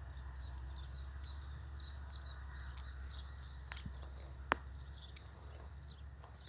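Open-field outdoor ambience: a low steady rumble with faint high chirps of insects and birds in the background. A single sharp click comes about four and a half seconds in.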